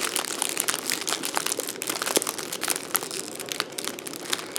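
Packaging of a boxed tool set being handled while it is opened, giving many small irregular crackles.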